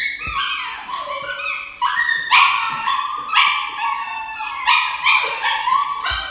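Dog crying out in a rapid string of high-pitched yelps and howls, many of them sliding down in pitch, in distress as it is given an injection in the scruff of the neck.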